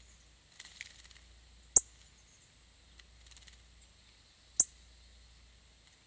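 A small songbird giving two sharp, high chip calls about three seconds apart, with faint quick high twittering ticks before each.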